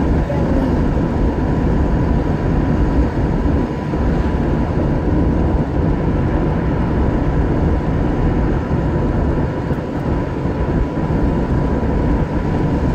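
Steady road and engine rumble of a car driving along a highway, heard from inside the cabin, with a thin steady tone above it.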